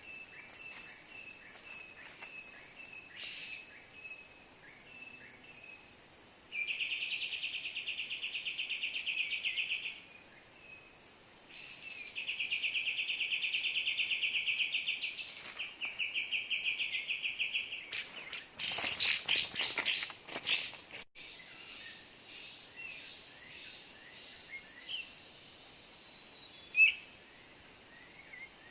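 Kapas tembak bird calls, given as rapid, even trills in three long bouts, the lure sound for trapping this species. A burst of quick fluttering clatter follows, then a few short chirps over faint insect ticking.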